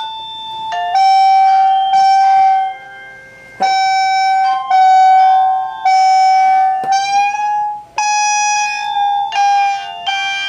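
1byone video doorbell sounding an electronic chime melody through its speaker just after being powered up: a slow run of held tones, about one a second with short breaks between them, really loud.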